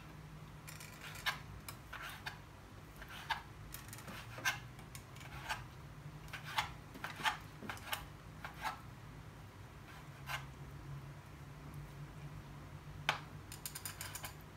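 Chillies being cut for larb: irregular sharp clicks of the blade, about one or two a second, with a quick run of clicks near the end.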